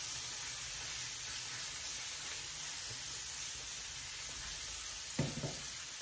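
Floured chicken wings deep-frying in a pan of hot oil, a steady sizzle with a low hum under it. A brief low sound cuts in just after five seconds.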